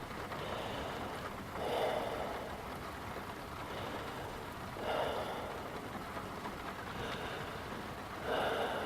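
A person taking slow deep breaths on request, three audible breathy swells about three seconds apart over a steady background hiss.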